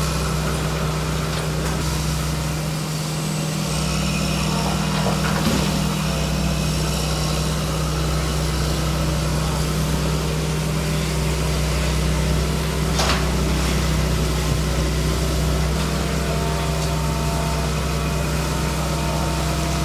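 Heavy engine idling steadily with a constant low hum.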